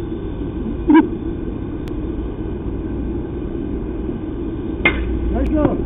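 A bat cracks against a baseball about five seconds in, a sharp single hit followed by brief shouts. Earlier, about a second in, there is a short knock, all over a steady low outdoor rumble.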